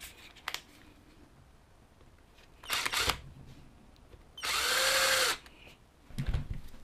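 Cordless drill driver running for about a second, about four and a half seconds in, to drive in the tie rod screw on the RC truck's hub; its motor pitch rises as it spins up and falls as it stops. A shorter noisy burst comes about three seconds in, and small clicks and knocks of handling the parts and tool come around it.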